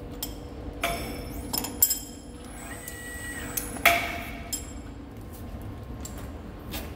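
Several sharp metal clinks with a ringing tail as a crane hook and lifting sling are taken off a steel cylinder barrel held in a lathe; the loudest clink comes about four seconds in. A steady low workshop hum runs underneath.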